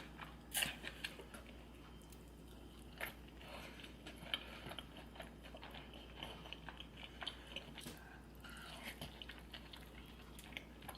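Close-up eating sounds: biting and chewing seafood, with scattered sharp crunches and small wet mouth clicks, a few louder bites about half a second and three seconds in.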